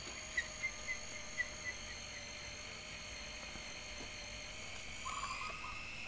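Canon EOS 500N's built-in motor rewinding the film back into its cartridge: a steady high-pitched motor whine, with a few light ticks in the first couple of seconds.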